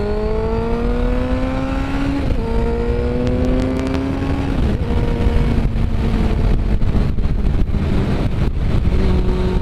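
2002 Suzuki GSX-R750's inline-four engine accelerating up through the gears. The revs rise, drop with an upshift about two seconds in, rise again and drop with another upshift about four and a half seconds in, then settle into a steady cruise. Heavy wind rumble on the microphone lies under it.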